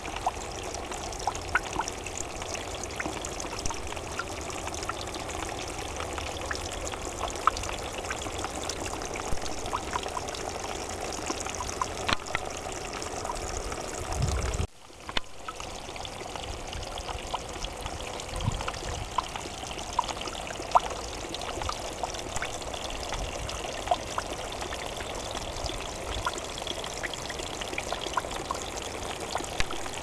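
Small streams of water trickling down mossy rocks, a steady splashing trickle dotted with many little drips. The sound briefly cuts out about halfway through.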